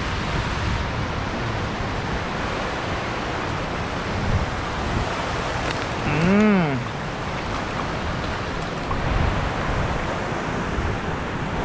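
Steady rushing noise of wind buffeting the microphone outdoors, with a single short hum about six seconds in that rises and falls in pitch.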